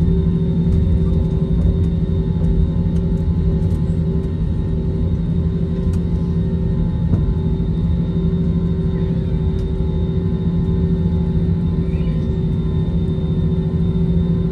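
Airbus A321 cabin noise while taxiing: the jet engines' steady low hum and rumble, with a few constant tones running through it.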